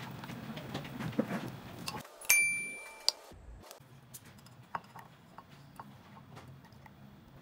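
A silicone spatula stirring and scraping in a glass measuring cup, then a single bright ringing clink about two seconds in as a stainless mesh strainer is set down on the glass rim, the ring dying away over most of a second. Faint scattered ticks follow.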